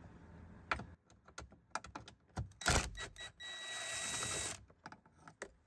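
Socket on a long extension turning out a 7mm bolt under the dashboard trim: a run of irregular metallic clicks and ticks, then about a second of continuous rasping, then a few more clicks near the end.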